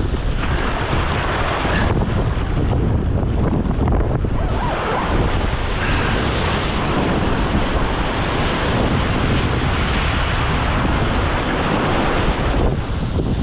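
Wind buffeting the microphone in a steady low rumble, over the wash of ocean waves.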